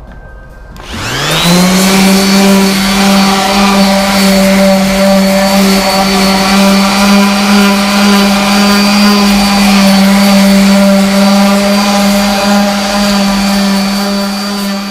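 Electric random orbital sander switched on about a second in, its whine rising as the motor spins up, then running steadily while sanding a plywood boat hull.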